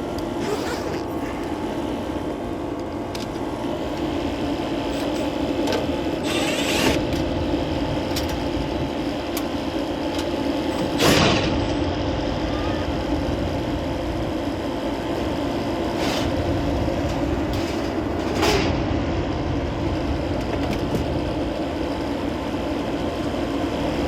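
Condensing gas furnace running: a steady mechanical hum, broken by a few short knocks and clatters.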